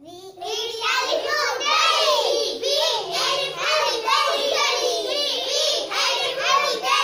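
A group of young children singing an action song together in unison, the voices coming in just after the start and running on without a break.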